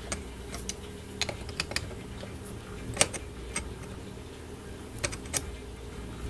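Pliers clicking and scraping on the steel locking tab of the output-shaft sprocket of a Simson two-stroke moped engine as the tab is bent over to secure the sprocket nut. The clicks are sharp and irregular, with the loudest about three seconds in.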